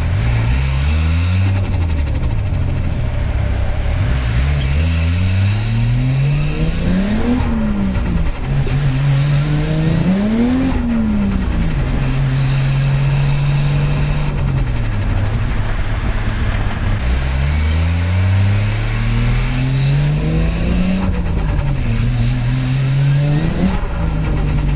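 Turbocharged Toyota 1JZ straight-six in a Nissan S14 pulling hard through the gears, with a turbo whistle rising on each pull. Several times the revs peak and drop as the throttle closes, followed by a rapid turbo flutter (compressor surge chatter).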